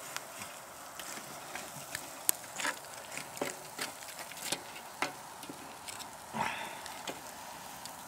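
Charcoal grill crackling: irregular sharp pops and clicks from the glowing coals and chicken cooking over them, over a steady low hiss, with a short rushing sound about six seconds in.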